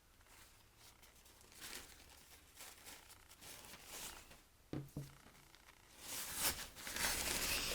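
Paper towels rustling and crinkling as they are unfolded and handled: faint scattered rustles at first, then a louder, continuous rustle over the last two seconds or so.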